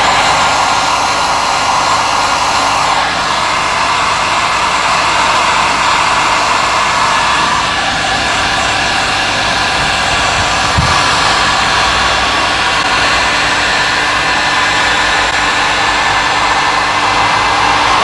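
Heat gun blowing steadily as it shrinks heat-shrink tubing onto bicycle cables.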